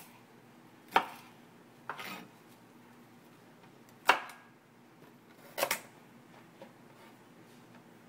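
Kitchen knife chopping vegetables on a cutting board: a few separate sharp chops, irregularly spaced, the loudest about a second in and about four seconds in.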